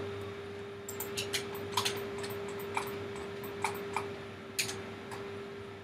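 Irregular clicking of a computer keyboard and mouse, about a dozen sharp clicks spread unevenly, over a faint steady hum.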